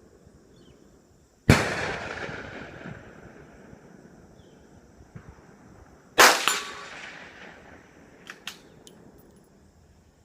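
Two shots from a Savage 93 bolt-action rifle in .22 Magnum, about five seconds apart. Each is a sharp crack with an echo that trails off over a second or so. A few light clicks follow about two seconds after the second shot.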